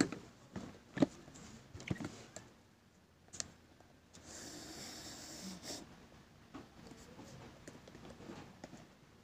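Handling noise: a few sharp knocks and clicks in the first few seconds, then a couple of seconds of rustling and lighter clicks as a small object is fiddled with close to the microphone.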